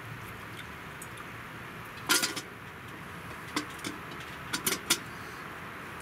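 A small camping kettle set back down on a wood stove's top, with sharp metal clinks and knocks from the kettle and its wire handle. The loudest knock comes about two seconds in, and a quick run of lighter clinks comes near the end, over a steady faint hiss.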